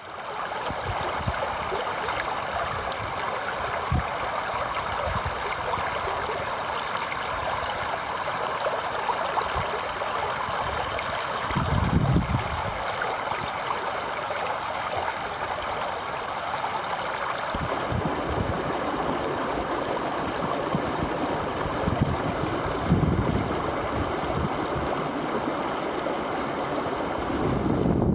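Creek water running steadily over a shallow bed, a continuous babbling rush, with a few brief low rumbles now and then.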